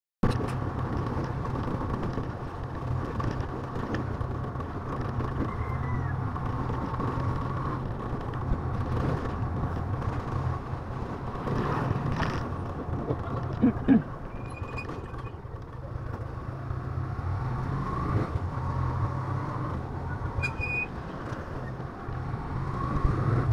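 Motorcycle engine running steadily on the move, with road and wind noise. It cuts in suddenly at the start, and there are a couple of brief louder knocks a little past the middle.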